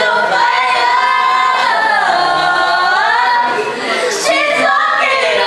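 Two young voices singing a long held note, sliding slowly up and down in pitch, straight into the blades of a running electric stand fan. There is a short break for laughter about four seconds in.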